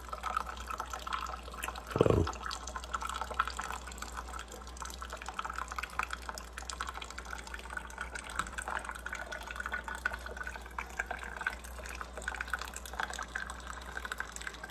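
Liquid trickling and dripping steadily, with one short thump about two seconds in.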